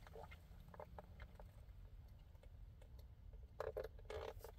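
Faint sounds of a person drinking through a straw from a plastic cup: small scattered clicks and soft gulps, with a couple of slightly louder swallows about three and a half and four seconds in, over quiet low hum.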